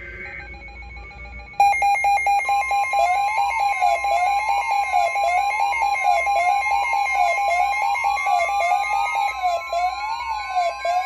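Weather radio alert alarm going off, marking the start of a new severe weather alert. The loud electronic alarm starts suddenly about a second and a half in: a warble sweeping up and down about once a second over a steady high tone. In the second half a further tone slowly rises in pitch.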